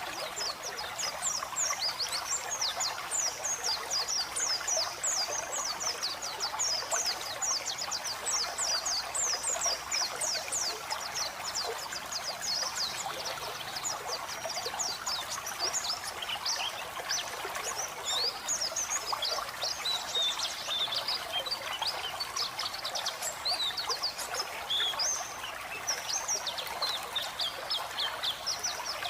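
White-eye (pleci) singing a fast, continuous twittering song of high, rapid chirps, over the steady sound of running water.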